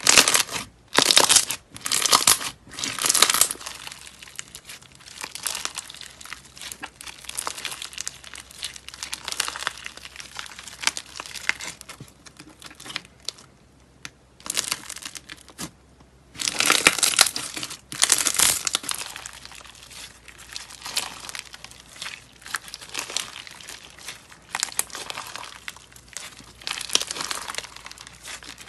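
White slime mixed with pearl beads being squeezed, folded and stretched by hand, giving a dense run of small wet clicks and crackles. It is loudest in a few hard squeezes in the first seconds and again a little past halfway, and softer in between.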